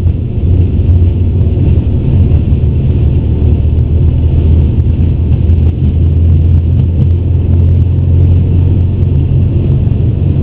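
Airbus A350 cockpit during the takeoff roll at takeoff thrust: a loud, steady low rumble from the engines and the wheels running down the runway, with faint scattered ticks.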